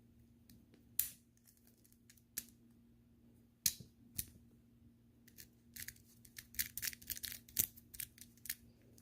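Small clicks of a TSA luggage combination lock's number rings being turned by hand while the combination is reset: a few scattered clicks, then a quicker run of clicking in the last few seconds.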